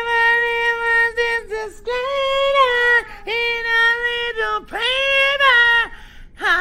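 A single high voice singing without accompaniment: a slow line of long held notes, each about a second, each starting with an upward swoop from below.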